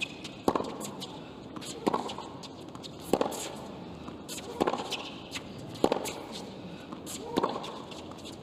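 Tennis rally on a hard court: racket strikes on the ball, six sharp pops about every one and a half seconds as the two players hit back and forth.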